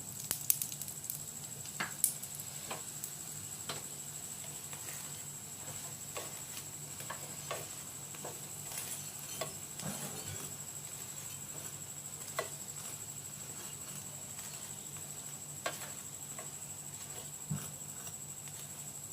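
Oil sizzling under a lachha paratha frying in a pan, with scattered small crackles and pops as fresh oil added at the edges heats up.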